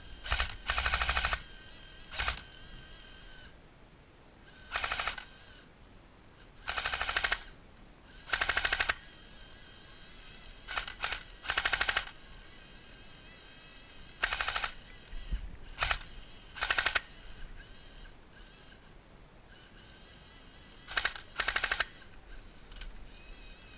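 Drum-fed airsoft submachine gun firing short full-auto bursts, a dozen or so rapid rattling strings of shots, each under a second long, with pauses between them.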